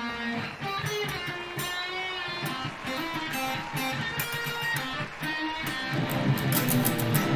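Electric guitar played in a clean tone, picking a melody of single notes with some bent or sliding pitches. About six seconds in it turns louder and fuller, with strummed chords.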